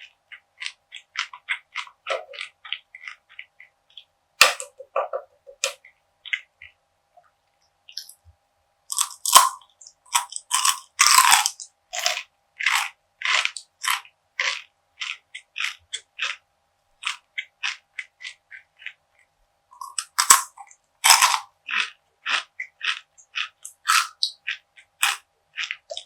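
Close-miked crunching and crackling of a person chewing crisp perilla seed gangjeong, with clusters of louder bites about a third of the way in and again about three-quarters through. A faint steady hum runs underneath.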